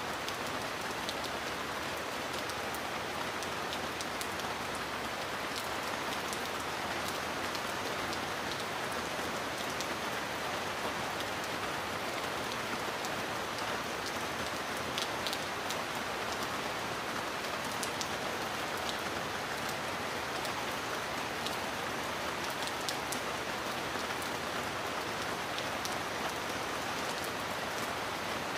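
Heavy rain falling steadily: an even hiss with scattered sharp ticks of individual drops.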